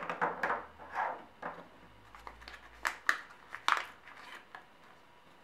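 Folded origami paper crinkling and crackling as hands pick up and handle a finished paper cat, in a quick series of short crackles that stop a little before the end.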